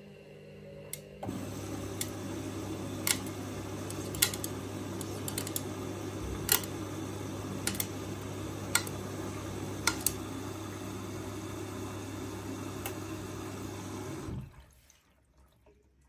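Candy Smart front-loading washing machine mid-wash: the drum tumbles wet laundry with water sloshing over a steady motor hum, and sharp clicks come about once a second. The tumbling gets louder about a second in and stops a second and a half before the end, as the drum pauses between turns.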